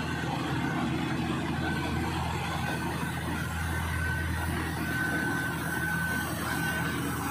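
Diesel engine of a Plasser & Theurer 09-16 CAT track tamping machine running steadily, a low hum. A thin high tone comes and goes several times over it.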